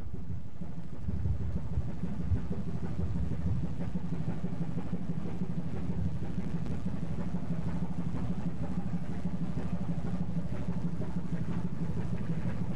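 A ship's engine running with a steady, low hum.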